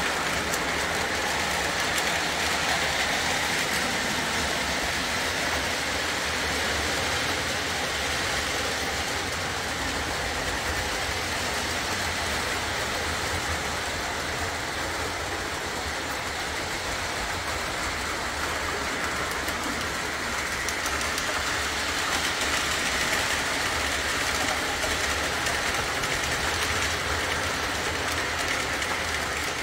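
Lionel O-27 Alco diesel model train running on its track: a steady rumble of wheels on rail over a low motor hum. It fades a little midway and swells again later.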